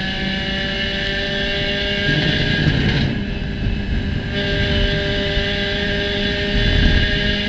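A Spec Racer Ford Gen3's 1.6-litre Ford four-cylinder engine running hard at steady high revs, heard from on board the race car, with a couple of louder low rumbles about two and seven seconds in.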